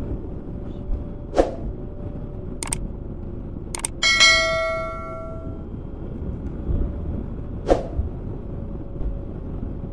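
A single bell-like metallic ring about four seconds in that dies away over about a second and a half, over a steady low rumble, with a few sharp clicks before and after it.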